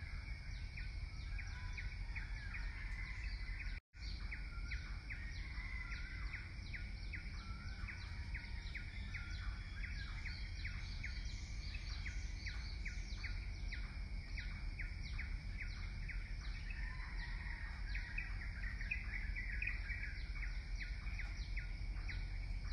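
Outdoor ambience of small birds chirping in quick, short notes, several a second, over a steady low rumble. The sound cuts out for a moment about four seconds in.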